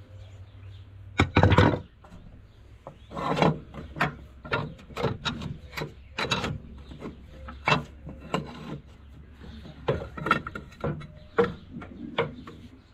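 Rusty brake parts from an Allis-Chalmers D17 Diesel being handled and worked loose by hand: a string of irregular metal knocks, clanks and scrapes, loudest a little over a second in.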